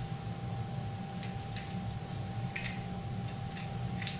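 Short, irregular scrubbing strokes of a rag wiping down a bare cast-iron Nissan VG30DETT engine block ahead of painting, over a steady low hum with a faint constant tone.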